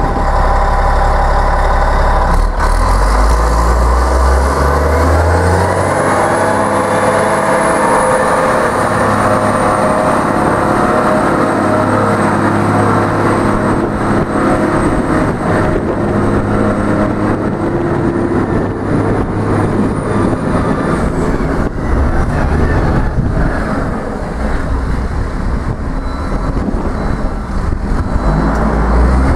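Sandvik TH430 underground haul truck's diesel engine running, picking up revs about five seconds in as the truck pulls away and drives off. A thin high whine sounds over the engine for about fifteen seconds.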